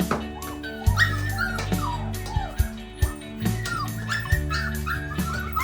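Dogs whimpering and yipping in short, high, wavering cries over background music.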